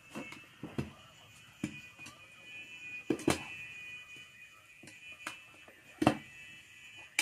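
Steel tyre levers clacking and scraping against a scooter's wheel rim as the tyre bead is pried off, a sharp metallic clack every second or so, the loudest about three and six seconds in.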